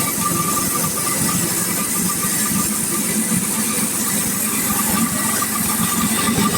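Sawmill's engine running steadily, with a constant whine above it.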